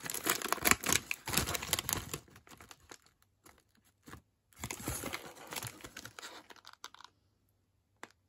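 Foil-lined crisp packet being pulled open: the sealed top seam tears apart with loud crinkling of the bag. After a short lull the packet crinkles again for a couple of seconds about five seconds in.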